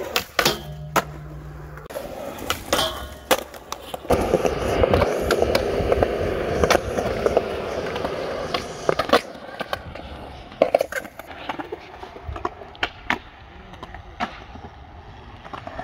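Skateboards on concrete: wheels rolling with a steady roar, loudest from about four to nine seconds in, and sharp clacks of boards striking the ground and ledges throughout, several in quick succession at the start.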